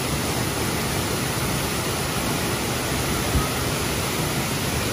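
Steady rushing noise, with a brief low thump about three and a half seconds in.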